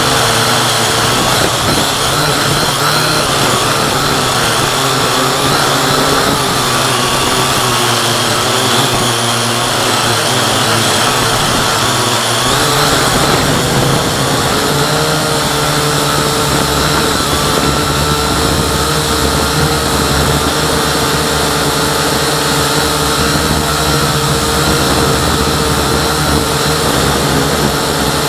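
Syma X8C quadcopter's four electric motors and propellers running steadily at flight throttle, with a constant whine and hiss from close up, as picked up by its onboard camera. The pitch of the whine shifts about halfway through.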